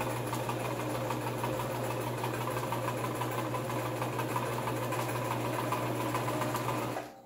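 Brother electric sewing machine running steadily at speed, the needle stitching a straight seam through fabric; the motor stops near the end.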